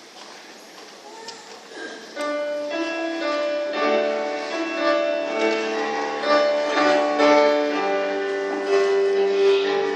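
Soft room murmur, then about two seconds in a keyboard begins playing slow held chords that build in loudness.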